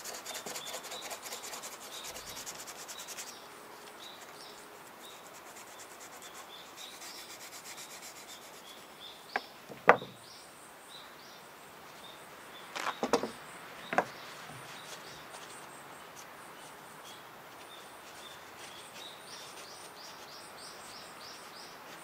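Quick rubbing strokes on the metal of a pair of pruning shears as they are cleaned, for about three seconds. A few sharp clicks and knocks come in the middle, the loudest about ten seconds in, and birds chirp faintly throughout.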